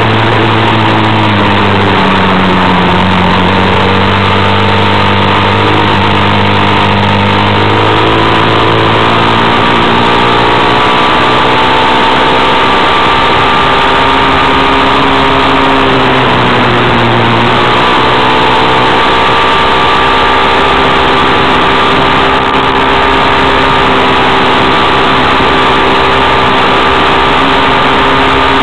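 A vehicle's engine running while driving along a gravel road, under a loud steady hiss of tyres on gravel and wind. The engine note sags about two seconds in and again past halfway, then climbs back as the vehicle eases off and picks up speed.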